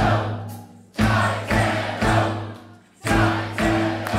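Music with choir-like singing: loud accented chords struck about half a second apart in groups of three, each group starting about every two seconds and fading out before the next.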